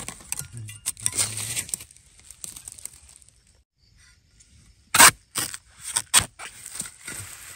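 Rustling and scraping in the leaf litter, then a metal digging spade chops into the base of a wild bamboo shoot: four sharp chops within about a second and a half, the first the loudest.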